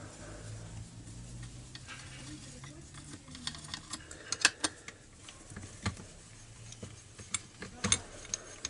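Light metallic clicks and scrapes of a T-handle 4 mm hex key turning out the carburettor mounting bolts of a two-stroke chainsaw, with a few sharper clicks in the second half, over a faint low hum.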